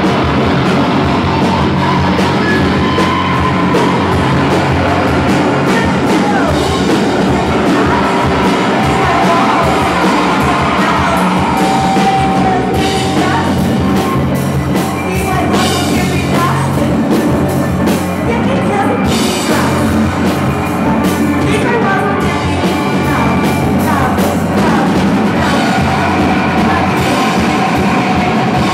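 Loud live band playing noise rock, a dense unbroken wall of electric guitar with yelled vocals.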